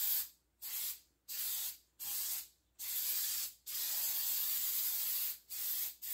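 Aerosol can of high-heat spray paint hissing in about seven short bursts with brief gaps between them, one burst lasting nearly two seconds in the second half.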